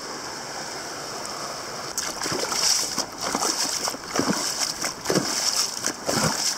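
Steady rush of a creek. From about two seconds in, irregular scuffs and crunches of boots walking on bedrock and dry leaves.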